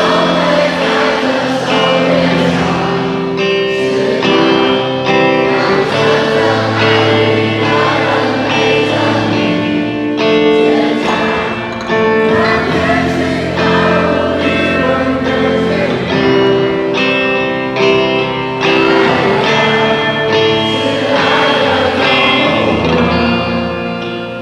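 Live rock band music with singing, several voices together.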